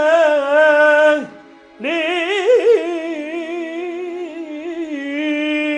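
A male singer's slow Arabic song with electronic keyboard accompaniment: long, wavering held notes that break off about a second in, then a new ornamented phrase rises and is held.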